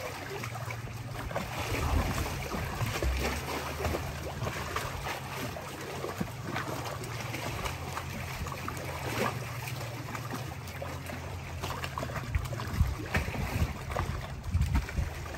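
Water lapping and splashing around the boulder and boat, with wind buffeting the microphone in low thumps and a steady low hum underneath.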